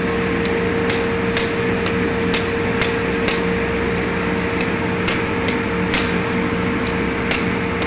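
A steady machine hum with a constant mid-pitched tone, with irregular light clicks over it.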